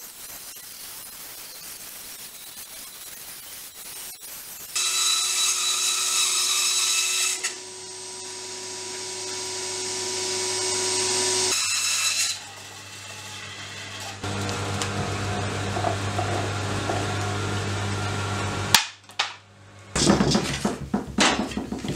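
Bandsaw running and cutting through a thick end-grain block of glued-up scrap wood. The cut grows loud in stretches, with a steady whine over it. Near the end there is a sharp knock, then wooden pieces clatter as they are set down and stacked on a workbench.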